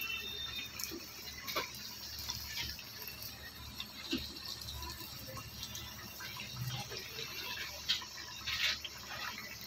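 Potato-and-wheat-flour patties deep-frying in hot oil in an iron kadhai on a low flame: a steady soft sizzle with scattered small pops and crackles.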